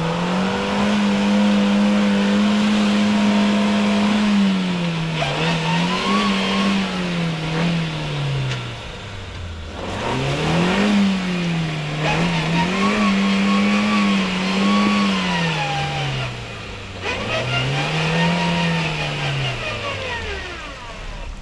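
Off-road 4x4's engine revving hard, held high for about four seconds and then rising and falling again and again as the throttle is worked. A steady hiss runs over it.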